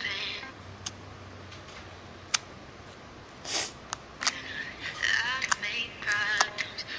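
Yellow slime being poked and pressed with a finger, giving a few sharp, separate pops and clicks.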